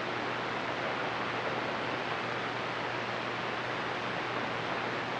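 CB radio receiver hissing with steady static on an open channel between transmissions, with a faint low hum underneath.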